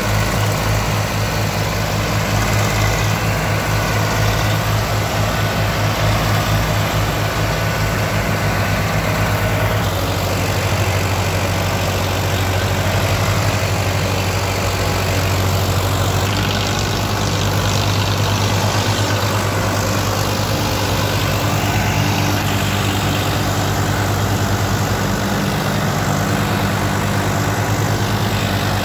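Farmtrac 45 and Eicher 485 tractors' diesel engines running hard together, pulling a trolley loaded with soil. The engine note shifts about ten seconds in and again a few seconds later.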